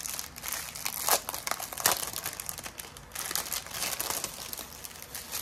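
Thin clear plastic packets of diamond-painting rhinestones crinkling as they are handled and pulled apart, with irregular sharp crackles that are densest in the first two seconds and thin out after.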